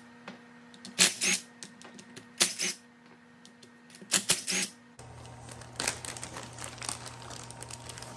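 Cordless DeWalt driver spinning bolts loose from the pump's top flange in three short bursts about a second and a half apart. After a cut, a plastic parts bag is handled, crinkling with many light clicks.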